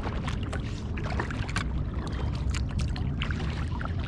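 Kayak paddling: the paddle blades dipping and splashing, with water trickling and dripping off them in short, irregular splashes over a steady low rumble.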